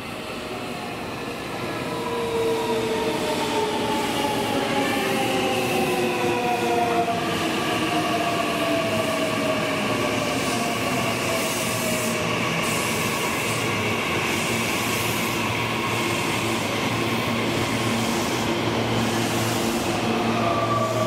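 Meitetsu 9500 series electric train pulling in and braking, its inverter-driven traction motors whining in several tones that fall steadily in pitch as it slows, over the rumble of wheels on rail. Near the end a steadier hum takes over as the coupled 2000 series cars roll past.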